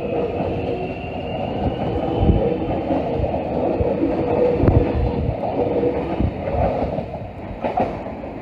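Melbourne Metro X'Trapolis 100 electric suburban train pulling out of the station, its wheels rumbling along the rails. A faint traction-motor whine rises in the first couple of seconds as it picks up speed, and the sound eases a little near the end as the train draws away.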